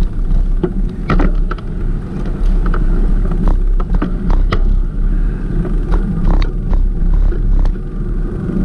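Wind rumbling steadily on the microphone of a moving bicycle, with many short, irregular clicks and rattles from the bike over the road.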